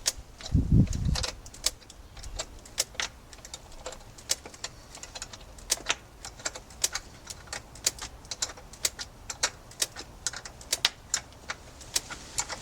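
Irregular sharp clicks and taps, two or three a second, of hand tools and small metal parts being handled during ignition coil work on a motorcycle, with a dull thud about a second in.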